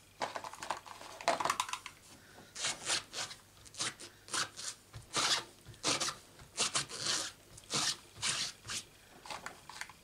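A clear-mounted rubber stamp rubbed back and forth on a stamp scrubber pad to clean off the ink, making rhythmic scratchy strokes about two a second after some handling noise at the start.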